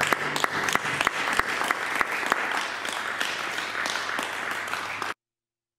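Audience applauding after a piano performance, many claps close together, cutting off abruptly about five seconds in.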